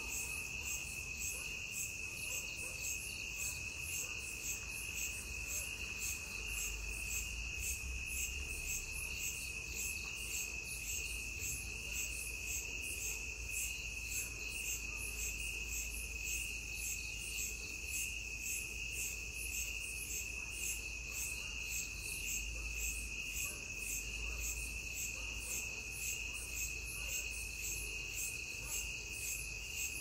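Crickets chirping in chorus: one steady, unbroken high trill with a faster, evenly pulsing chirp layered above it.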